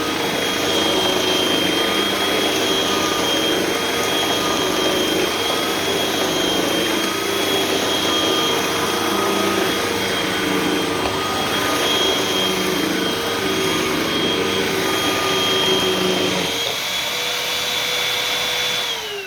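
Hoover vacuum cleaner running with its brushroll: a steady motor whine over an uneven lower rumble. About three quarters of the way through the rumble drops away, leaving the whine, which starts to fall in pitch at the very end as the motor winds down.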